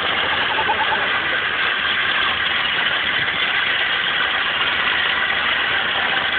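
Towing car driving slowly on a gravel track: the engine runs steadily at low revs under a constant wash of tyre and road noise.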